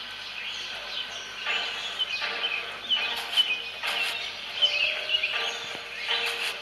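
Birds chirping in quick, repeated short calls.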